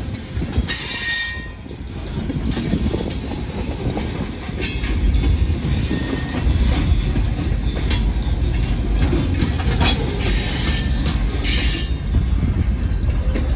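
Freight train of boxcars rolling past, a steady heavy rumble of steel wheels on the rails, with several brief high-pitched bursts over it.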